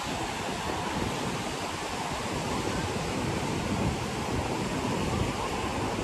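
Steady wash of ocean surf breaking and running up a sandy beach.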